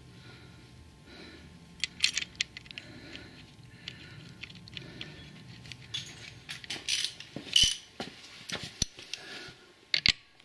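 Metal clinks and taps of hand tools against the new clutch assembly on a small 110cc ATV engine, with a few sharper metallic knocks in the second half.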